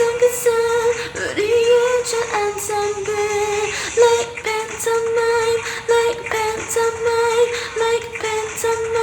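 A solo voice singing a K-pop song in Korean, quick repeated syllables on nearly one pitch, over a backing track with light high ticks.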